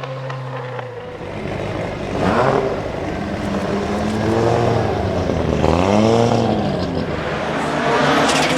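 Audi Quattro S1 E2's 2.1-litre turbocharged inline-five running, its revs climbing and falling several times over.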